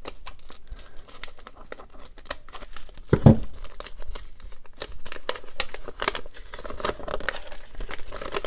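Paper rustling and crinkling as a folded, taped note is handled and worked open, with a dull thump about three seconds in.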